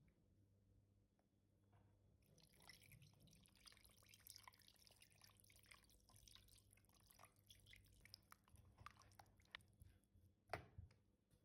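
Faint wet crackling and dripping starting about two seconds in, with a single knock near the end.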